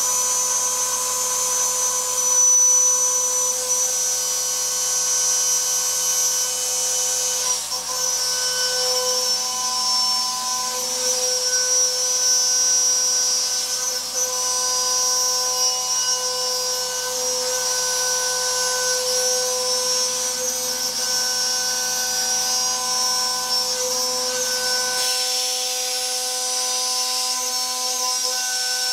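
CNC mill cutting aluminium plate with a quarter-inch two-flute carbide end mill at about 15,000 rpm: a steady high-pitched machining whine, with a strong tone at the rate the flutes strike the metal and a shrill note above it. A low hum underneath cuts off a few seconds before the end.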